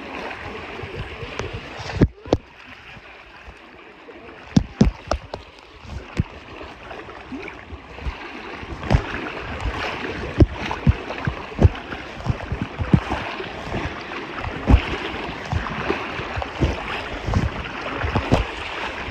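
River water splashing and sloshing close to the microphone, with frequent sharp knocks and bumps. A loud knock about two seconds in is followed by a few quieter seconds before the splashing picks up again.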